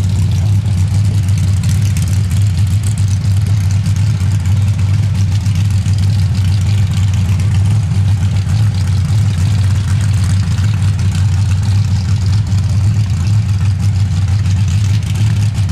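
Dirt drag race truck's engine idling loudly and steadily, a deep, even exhaust note, while the truck rolls slowly forward to stage at the starting line.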